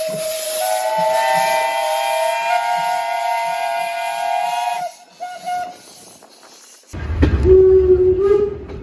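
Train horn sounding a held chord: one tone, joined by higher tones about half a second in, held for about four seconds and then cut off. After a short lull a lower-pitched horn blast sounds over a loud rumble of the train near the end.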